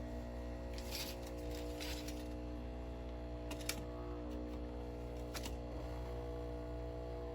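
Nespresso Vertuo Pop+ machine running at a steady speed, a steady hum with a few light clicks, typical of the capsule spinning while the machine brews.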